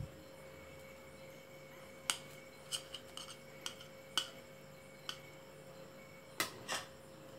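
Light clinks and taps of a stainless-steel plate and spoon against dishes as they are handled, about eight short knocks spread out irregularly, over a faint steady hum.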